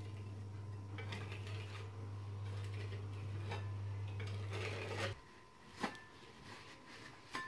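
Metal spatula scraping and tapping against a textured wall as polyurethane sealant is worked into a crack, over a steady low hum; both stop suddenly about five seconds in. Then a few faint clicks and rustles as paper towels are handled.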